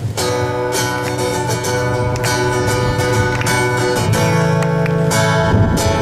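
Acoustic guitar strummed in repeated chords, an instrumental break between sung verses with no voice.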